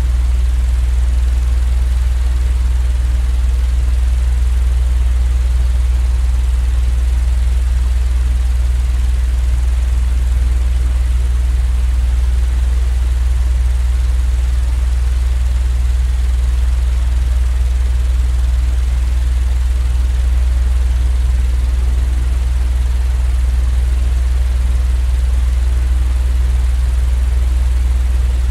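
A steady, unchanging low-pitched machine drone, strongest in the deep bass, with a faint even hiss above it.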